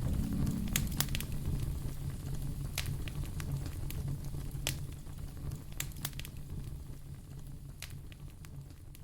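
Wood fire crackling, with irregular sharp pops over a low, steady rumble of the flames, the whole sound fading gradually.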